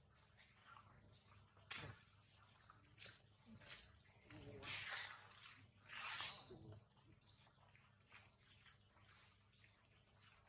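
High-pitched animal chirps repeating about once a second, with a couple of louder, fuller squeals in the middle.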